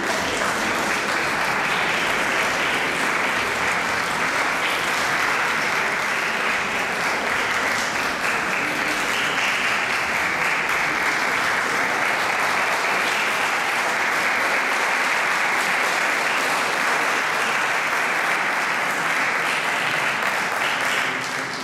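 Audience applauding steadily, a dense spread of clapping that starts to die away at the very end.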